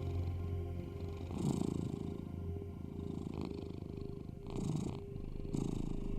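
Domestic cat purring steadily, swelling and easing with each breath about once a second, over a steady low drone.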